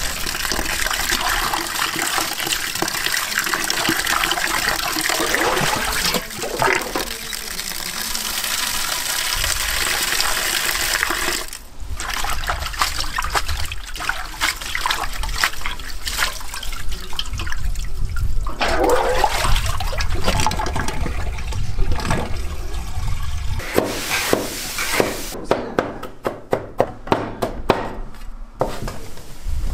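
Tap water running into a stainless-steel basin while hands swish and rinse wild onions in it. Near the end, a cleaver chops rapidly on a wooden board, mincing garlic.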